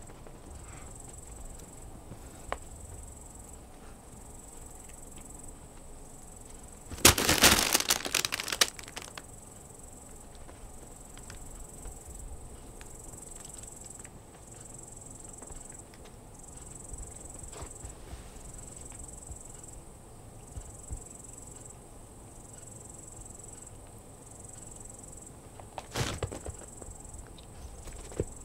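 Cats play-fighting on a rug: about seven seconds in, a two-second burst of scrabbling, thumps and crackles, and a shorter one near the end. Behind it, a thin high insect-like trill switches on and off about once a second.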